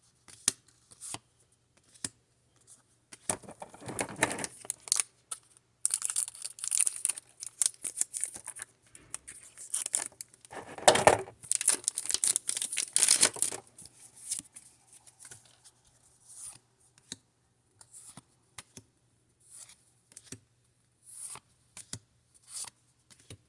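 Foil Pokémon booster pack torn open and its wrapper crinkled, among short rustles and clicks of card handling. The loudest tearing comes about six seconds in and again from about ten to thirteen seconds.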